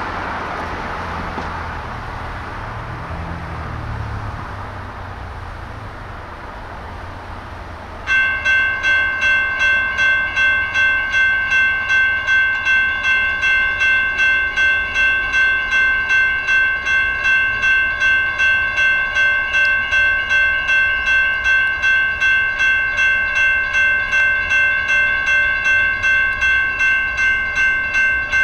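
Railroad crossing signal bells start ringing suddenly about eight seconds in, after a fading rush of background noise. They strike in a rapid, even rhythm of about two dings a second as the crossing activates for an approaching train.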